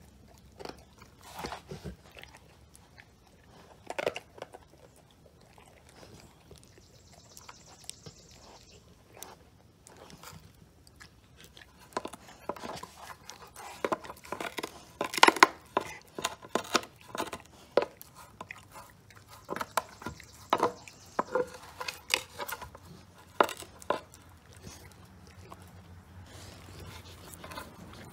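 Rottweiler gnawing and crunching on a giant scapula bone: irregular cracks and scrapes of teeth on bone, sparse at first, then coming thick and loudest through the middle.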